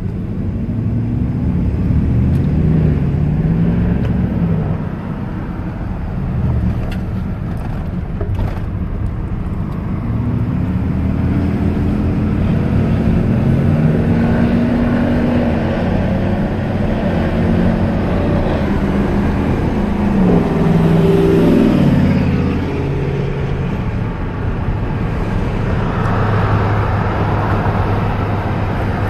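Inside the cab of a 2000 Dodge Ram 1500 pickup on a road test: the engine rises in pitch and drops back several times as the truck accelerates through the gears, over steady road noise. The rear differential's worn gears and bearings have just been replaced, and the differential hum is gone.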